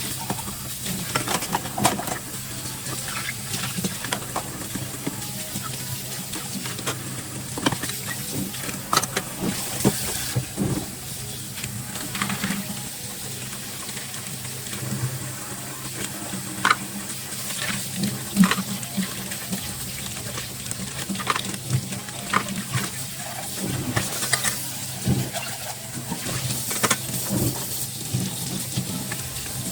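Dishes being washed at a kitchen sink: water running from the tap, with irregular clinks and knocks of dishes and utensils being handled.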